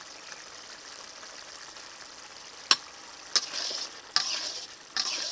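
Thickened shrimp bhuna gravy sizzling softly in a metal karai as it cooks down near the end of cooking. About two and a half seconds in, a spatula taps the pan and then stirs the curry in three short scraping, sizzling strokes.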